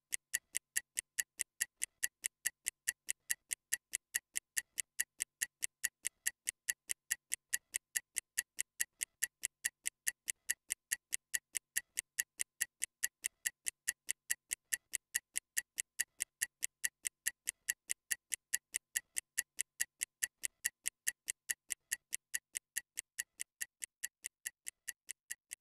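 Stopwatch ticking sound effect: a steady, even tick about four times a second, timing a 30-second recovery rest. It grows a little softer near the end.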